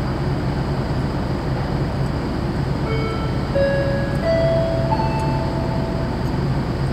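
Steady low hum of a docked passenger-cargo ship's diesel machinery running. About halfway through, a short run of single sustained chime-like notes at different pitches rings out over it.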